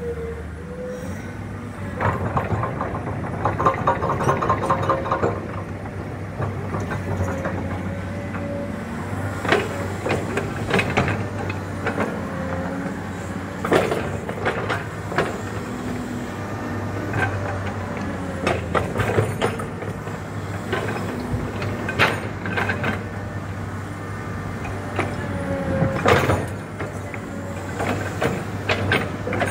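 Hydraulic excavator running steadily, with a wavering hydraulic whine over the engine. There is a rapid clatter a couple of seconds in, and sharp metallic clanks come every few seconds as it works the fill soil.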